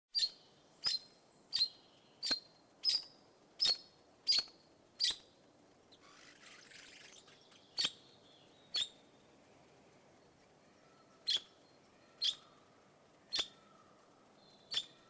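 Red-rumped parakeet calling: short, sharp, high chirps, eight in a quick even series, then six more spaced out. A soft hiss lasts about a second in the middle.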